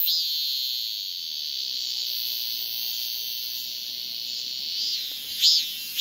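Male Korean cicada (Hyalessa fuscata, the 'maem-maem' cicada) singing its calling song to attract a female: a steady high buzz that eases off slightly over about five seconds, then breaks back into pulsed 'maem' notes, about two a second, near the end.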